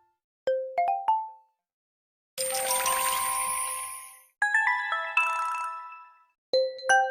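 A run of short Honor MagicOS 9 phone alert chimes, each played separately with brief silent gaps. First comes a quick three-note rising chime, then a sparkly, shimmering chime lasting about two seconds, then a multi-note bell-like chime with a fluttering middle, and a fourth chime starts near the end.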